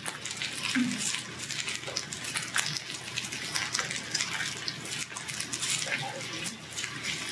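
Slices of pork belly (samgyeopsal) sizzling on a hot grill plate: a steady hiss dotted with many small crackles, as the meat is laid on and moved about with metal tongs.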